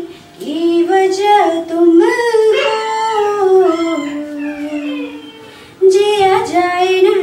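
A young woman singing a Hindi song unaccompanied, holding long notes, with a slow falling glide in the middle and short breath breaks near the start and about six seconds in.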